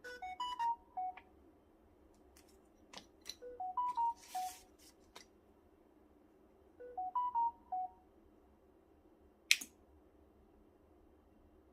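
Homemade water alarm, a portable radio's MP3 player switched on by a rain-sensor module, sounding a short electronic melody of stepped beeps. The melody plays three times a few seconds apart, with scattered clicks between, and one sharp click comes near the end.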